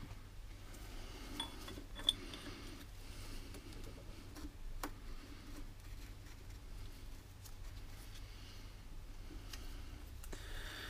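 Faint clicks and clinks of steel parts being handled, with one sharper click about two seconds in, as a differential's threaded backlash adjuster nut is set into the casing against the carrier bearing.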